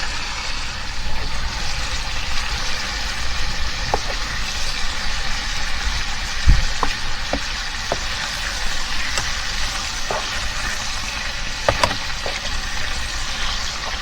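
Smoked back bacon sizzling in a frying pan on a gas camping stove, a steady hiss with frequent small spits and crackles. One louder low thump about six and a half seconds in.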